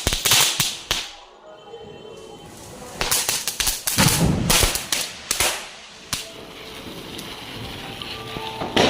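Firecrackers bursting in rapid, irregular cracks: a cluster right at the start, another about three to five and a half seconds in, and one more sharp crack near the end.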